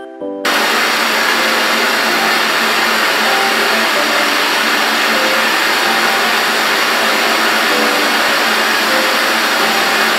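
Two gas blowtorches running with a steady loud hiss as they heat a frying pan of melted, bubbling pink slime. The hiss starts suddenly just under half a second in.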